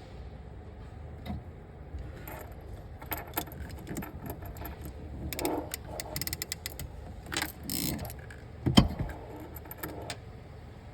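Metal hand tool and small metal parts being handled: scattered clicks and short rattles, with one sharp, loud click a little before nine seconds in.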